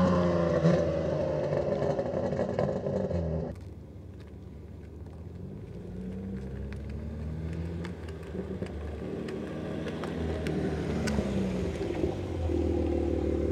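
BMW G80 M3 Competition's twin-turbo inline-six, breathing through a Valvetronic Designs titanium exhaust, falling back from a rev toward idle. It turns much quieter suddenly about three and a half seconds in, then idles with a couple of light throttle blips, and steps up louder again near the end.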